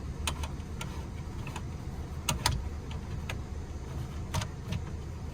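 Scattered light clicks and knocks of metal and plastic bed-frame parts being handled, with a sharp pair about two and a half seconds in, over a steady low rumble.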